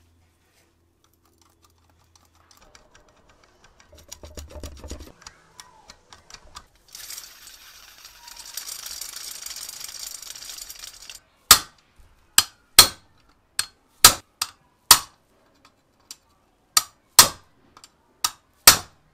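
A steel punch is hammered against a pressed-steel tricycle wheel rim: about eleven sharp metallic strikes in irregular groups, tapping a dent or bend out of the rim. Before the strikes there is a faint hiss as the wheel spins on a wooden dowel.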